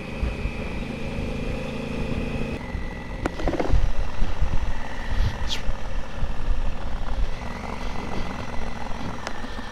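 Motorcycle riding along, its engine running under heavy wind noise buffeting the microphone. The engine note shifts about two and a half seconds in, and the buffeting is strongest a few seconds later.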